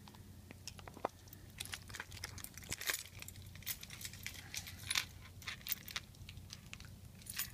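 Keys and other small hard objects clinking and rattling in a string of irregular sharp clicks, over a steady low hum.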